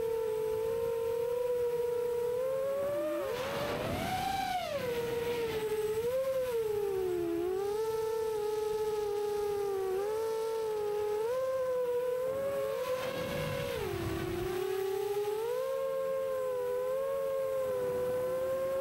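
Six-inch FPV quadcopter's iFlight Xing brushless motors whining, the pitch dipping and rising as the throttle changes. Two brief rushes of air noise come through about four and thirteen seconds in.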